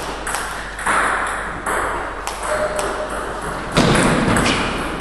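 Table tennis rally: the celluloid ball clicks off the bats and table in a quick, uneven series of sharp ticks. About four seconds in there is a louder rushing noise lasting about half a second.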